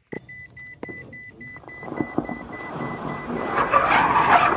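A click, then a run of short high beeps, about four a second, that slowly fade away. Under them a rush of car tyre and road noise builds and is loudest near the end.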